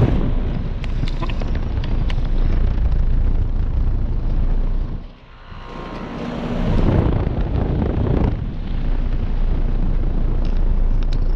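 Outdoor unit of a 2014 American Standard Gold 13 heat pump running in cooling mode: the steady hum of its Alliance scroll compressor under the rush of air from the condenser fan's Genteq motor. The sound drops sharply about five seconds in, then swells louder for a couple of seconds before settling back to a steady level.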